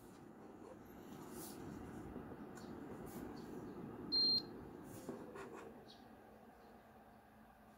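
Kakao Friends Ryan KFM-001 wireless mouse being handled and turned over in the hands: soft rubbing of skin on the plastic shell with a few faint clicks. About four seconds in, a short high beep lasting about a third of a second is the loudest sound.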